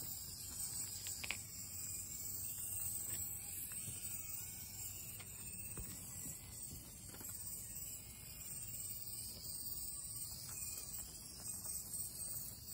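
Brushless Axial SCX24 micro RC crawler driving over rocks: a faint motor whine that rises and falls with the throttle, and scattered clicks of tyres and chassis on stone, over a steady high hiss.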